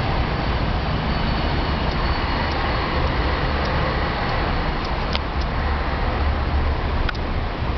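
Steady engine and road noise from a moving vehicle, with two short clicks about five and seven seconds in.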